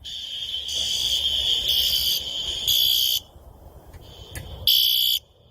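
Electronic fire alarm sounding a steady, high-pitched tone for about three seconds, then after a short quieter gap one more brief loud blast near the end.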